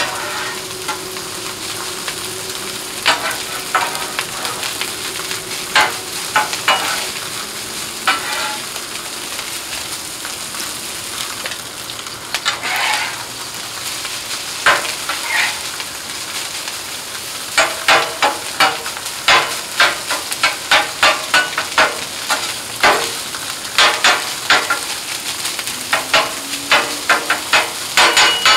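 Fried rice sizzling on a hot Blackstone steel flat-top griddle while metal spatulas stir and chop it, clacking and scraping on the cooktop. The clacks come now and then at first, then in a quick steady run of about two a second from a little past halfway.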